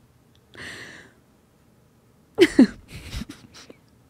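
A woman laughing almost silently: a breathy exhale, then a short louder burst of laughter about two and a half seconds in, trailing into a few smaller breaths.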